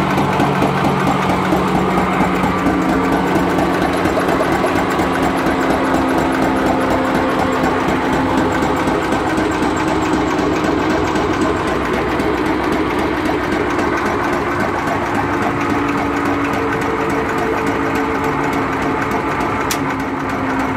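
Witte 10 HP single-cylinder stationary engine running steadily with a fast, even beat.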